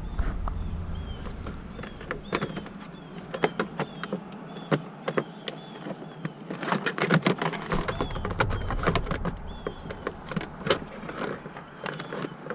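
Plastic steering-column trim pieces being handled and fitted back together: scattered clicks, knocks and rattles of plastic.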